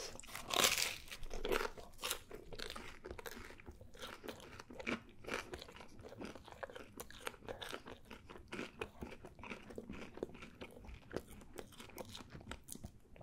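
A person chewing pizza crust with mouth sounds close to the microphone: a dense, uneven run of small crunches and crackles.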